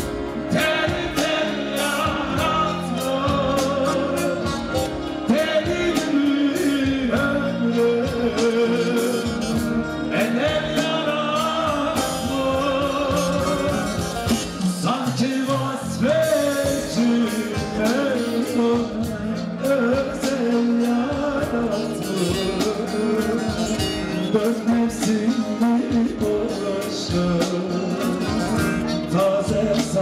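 A man singing a Turkish song live into a handheld microphone, over loud amplified band accompaniment with a steady beat.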